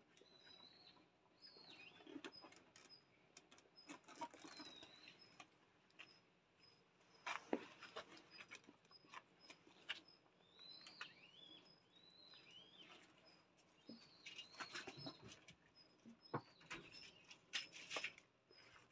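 Faint bird chirps, short high calls that drop in pitch, over a faint high tick repeating about twice a second, with soft scuffles and pattering.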